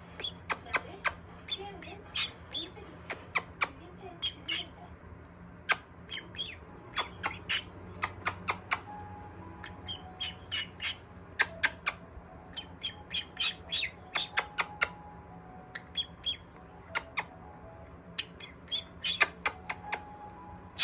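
Pet parrot giving many short, sharp squawks and chirps in quick runs, over and over.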